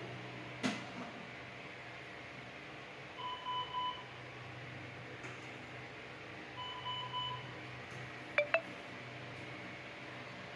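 Electronic beeping from NICU monitoring equipment: two short runs of beeps a few seconds apart, then two quick sharp tones near the end, over a steady low hum.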